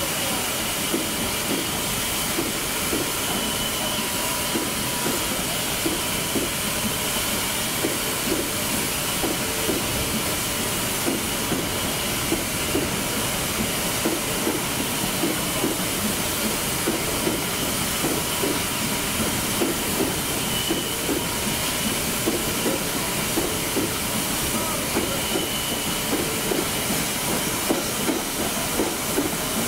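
Steam locomotive 46115 Scots Guardsman, an LMS Royal Scot class 4-6-0, standing and hissing steam steadily, with light irregular ticks underneath.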